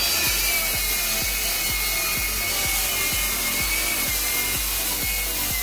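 Ryobi cordless circular saw crosscutting a solid pine board, its motor holding a steady high whine as the blade cuts. Background music with a steady beat plays underneath.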